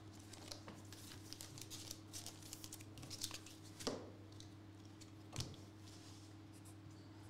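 Faint rustling and light taps of trading cards and foil card packs being handled on a table mat, with two slightly louder taps about four and five and a half seconds in, over a faint steady hum.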